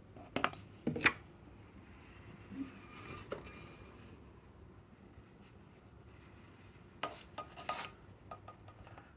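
Knocks and clinks of hard objects being handled. There are two sharp ones in the first second or so, a lighter one a little after three seconds in, and a quick cluster around seven to eight seconds in, with faint rubbing between.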